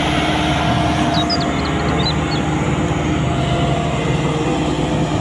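Diesel engine of a Bomag BW 211D-40 single-drum soil compactor running steadily, a loud even drone.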